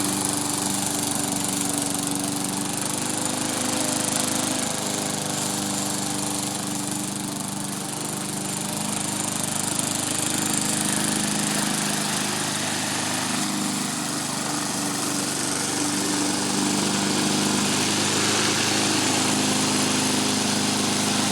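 Pull-start walk-behind gasoline lawn mower running steadily, its engine note wavering slightly now and then.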